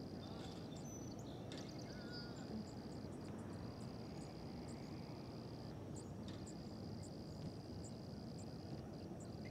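Insects trilling in a steady high tone that breaks off briefly a few times, over a low, even background rumble, with a few faint high chirps and a short whistle about two seconds in.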